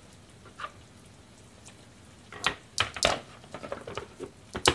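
A plastic food-storage container and its lid being handled and shut: a faint click, then a cluster of sharp plastic clicks and knocks, with the loudest single click near the end.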